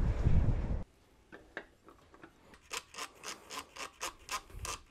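A low rumble that cuts off suddenly just under a second in, then faint irregular clicks and rubs, a few a second, as the plastic microphone holder and shock-mount parts are handled and fitted together.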